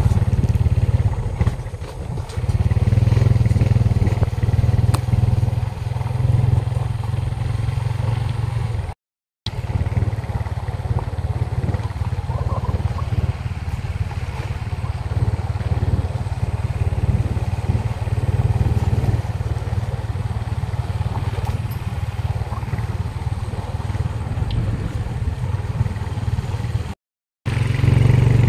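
Motorcycle engine running steadily while riding along a rough rural road. The sound cuts out twice for a moment.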